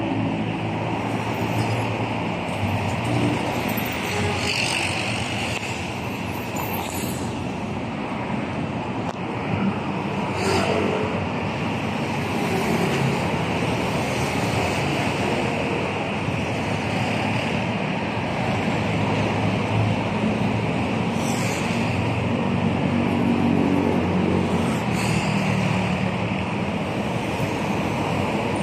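Steady road traffic: cars and motorcycles passing close by, a continuous wash of engine and tyre noise that swells as each vehicle goes past.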